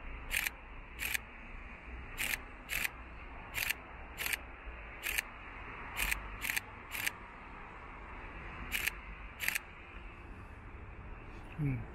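Camera shutter firing about a dozen times, single clicks and quick pairs at uneven intervals, over a steady low background rumble.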